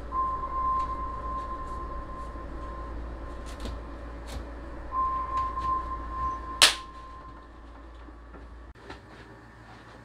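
Rope being knotted around a refrigerator door handle, with light scattered clicks and rustles. Over it a steady high tone sounds twice. About two-thirds of the way through, one sharp hand slap of a high five is the loudest sound.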